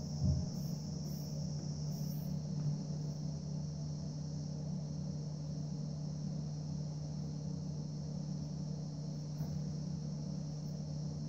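Steady low electrical-sounding hum with a constant high hiss over it, and one soft thump just after the start.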